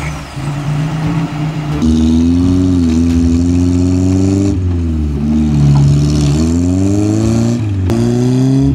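Suzuki Vitara 4x4 engines revving under load during a tow out of a ditch, the revs climbing and falling several times; this first pull does not get the stuck vehicle out.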